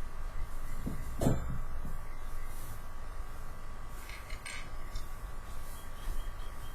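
A few light knocks and clinks of small hard objects being handled, over a steady electrical hum.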